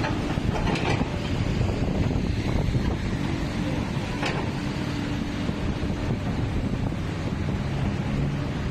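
Komatsu backhoe's diesel engine running steadily, with a few faint knocks from the machine.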